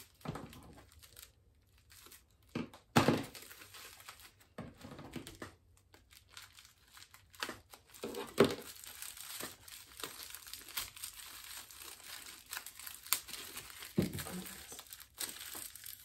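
Bubble wrap and plastic packaging being pulled and torn open by hand: irregular crinkling and tearing, with louder rustles about three, eight and fourteen seconds in.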